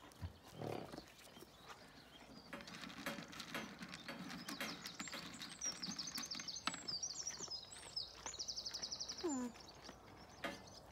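Alpacas in a pasture: steady rustling and crunching, with an adult alpaca feeding from a bowl, and small birds chirping and trilling in the middle. Near the end comes one short animal call that falls in pitch.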